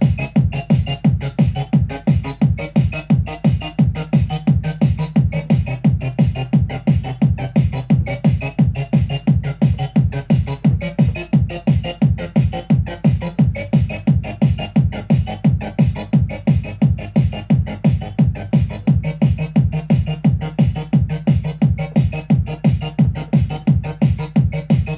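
Live electronic techno from a Roland TR-8 drum machine and Roland TB-3 bass synthesizer: a steady, evenly spaced kick drum beat with a pulsing bassline and regular high percussion ticks.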